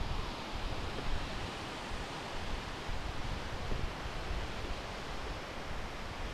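Steady outdoor wind and surf noise: waves breaking on a stony beach, with wind buffeting the microphone in uneven low rumbles.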